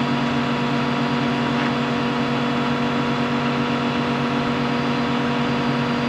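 John Deere 210G excavator's diesel engine running at a steady speed, a constant hum with no change in pitch.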